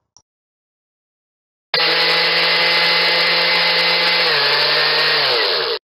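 Electric kitchen blender motor running at a steady whine for about four seconds, dropping a little in pitch past halfway. It starts and stops abruptly.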